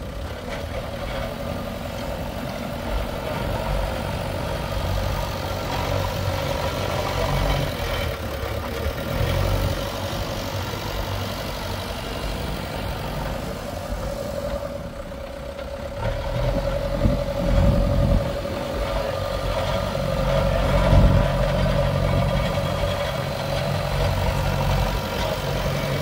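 Heavy diesel engine of earth-moving or farm machinery running steadily, its low rumble swelling a few times as if working under load.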